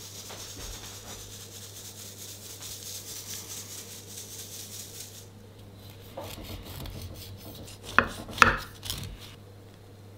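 Icing sugar being sifted over a cake, a soft, fast, rustling patter, for about five seconds. Then a knife cutting through the sponge cake, with two sharp clinks of the blade against the ceramic plate near the end.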